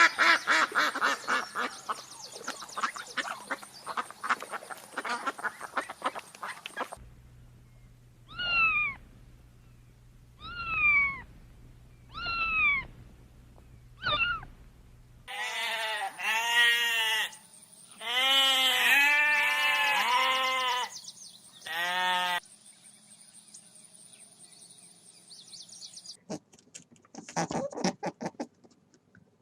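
A sequence of different animal calls: a fast run of short pulses, then four short calls that fall in pitch, then a cluster of longer, strongly pitched calls.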